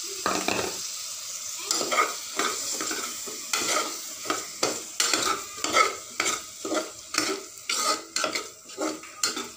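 Tomato pieces frying with onion and masala paste in a pressure cooker pot, sizzling while a metal spoon stirs and scrapes against the pot. The scrapes come in quick repeated strokes, about three a second later on.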